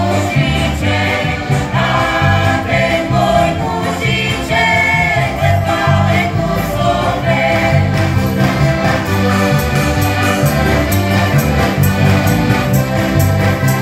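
Slovak folk band playing live on heligónkas (diatonic button accordions), with electric bass and acoustic guitar keeping a steady beat. Voices sing a folk song in the first half or so, then the accordions carry the tune on their own.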